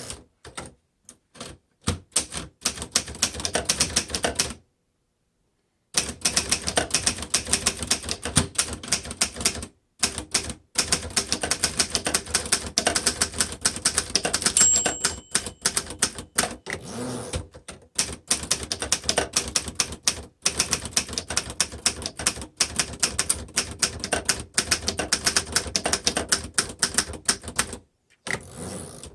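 1954 Underwood upright manual typewriter being typed on fast, a steady run of typebar strikes with a short pause near the start. About halfway through, the carriage bell rings once briefly as the line nears the margin.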